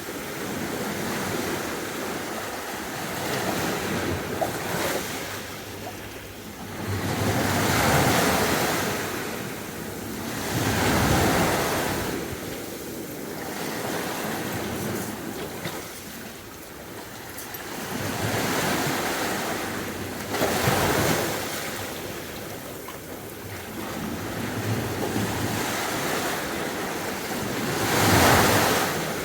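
Sea waves breaking and washing up the beach, the surf swelling and falling back every few seconds, with the loudest surge near the end.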